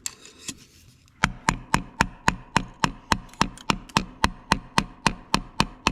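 Hammer blows on a screwdriver driven in behind a cylinder sleeve of a Ford 8N tractor engine block, working the sleeve loose. The steady strikes, about four a second, begin just over a second in, each with a short metallic ring.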